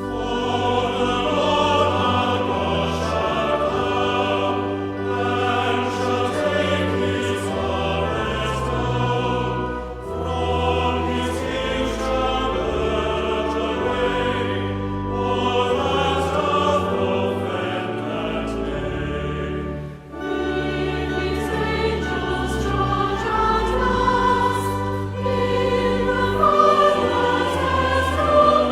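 A choir singing with orchestral accompaniment, in long phrases with brief breaks about a third and two thirds of the way through.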